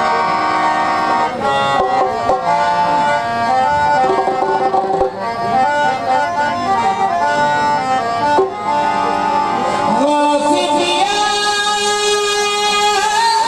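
Harmoniums playing a qawwali melody in held notes that step from one pitch to the next; about ten seconds in a voice comes in singing with them.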